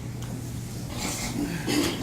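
A pause in speech: room tone with a steady low hum, and faint voices in the background about a second in.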